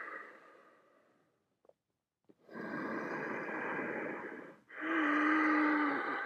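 A person's deep, audible breathing: a breath trailing off, a pause, then two long breaths about two and a half and four and a half seconds in. The second breath is louder and carries a low hum of voice.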